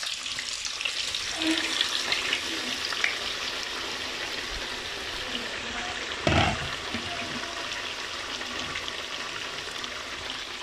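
Hot oil in a frying pan sizzling and bubbling hard as sliced raw potatoes, wet from soaking in water, are tipped in from a bowl. A short knock about six seconds in.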